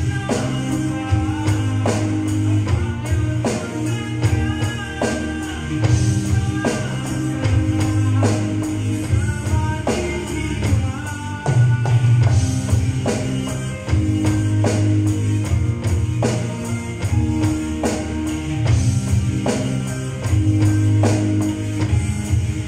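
Drums played along on an electronic drum kit over a recorded pop song with singing, guitar and bass, the hits keeping a steady beat.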